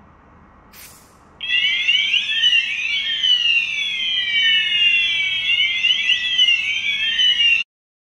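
Brief hiss of smoke detector test aerosol, then the AW-D320 addressable strobe sounder base goes into alarm with a loud, high sweeping electronic siren tone. This is the sign that the smoke detector has sensed the test smoke. The tone starts about a second and a half in and cuts off suddenly near the end.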